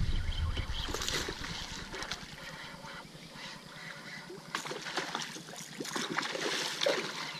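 Hooked black bass splashing and thrashing at the water's surface as it is reeled in toward a kayak, with scattered knocks and clicks.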